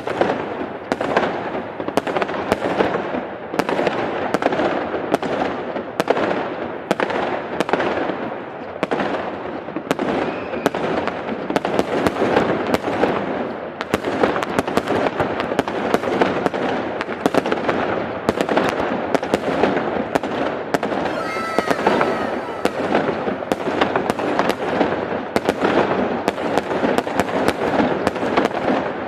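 Large fireworks display: a continuous barrage of sharp bangs, several a second, over dense crackling.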